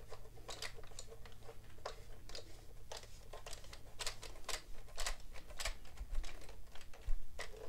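Black plastic leg being screwed by hand into the housing of an Addi knitting machine: a string of irregular sharp plastic clicks and ticks.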